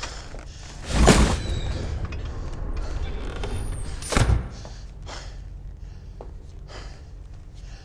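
Two heavy clunks about three seconds apart, with a low hum between them that drops away after the second clunk.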